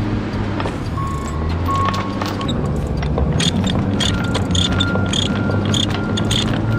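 Chain ratchet binder being cranked tight on a steel load chain, its ratchet clicking in a regular rhythm about twice a second from a few seconds in, over a low steady hum.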